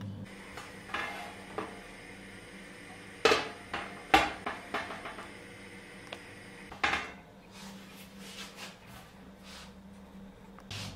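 A black metal oven tray is laid over an aluminium baking pan as a lid, clanking against it in a few sharp metal knocks. The loudest knocks come about three and four seconds in, with another near seven seconds.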